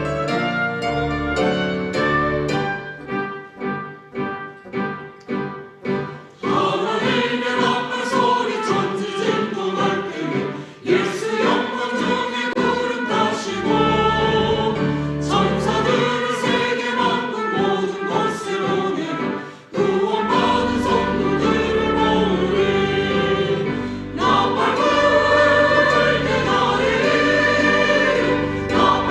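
A church choir singing a sacred anthem with piano accompaniment. The first few seconds are repeated piano chords on their own, and the full choir comes in about six seconds in.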